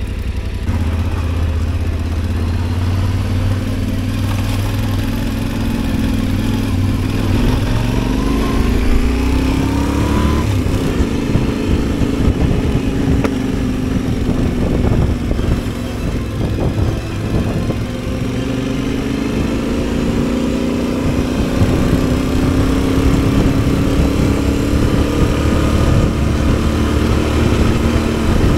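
Adventure motorcycle engine working under load on an off-road trail. It revs up, drops back about ten seconds in as if shifting, then climbs again, with scattered knocks and rattles along the way.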